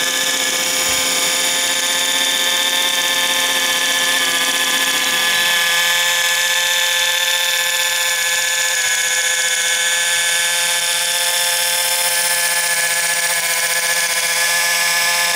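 KitchenMama battery-operated can opener's small electric motor running steadily as the opener travels around the rim of a can, cutting the lid off at its seal. A steady whine of several pitches, with a slight change in tone about five seconds in.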